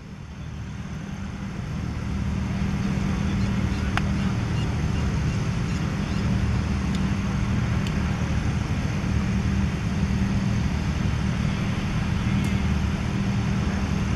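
A steady low mechanical rumble with a hum in it, swelling over the first two seconds and then holding even. A single faint click about four seconds in.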